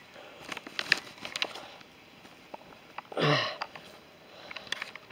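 A walker's single heavy breath about three seconds in, short, loud and with a little voice in it. Before it come a few light crunching footsteps on the dry path.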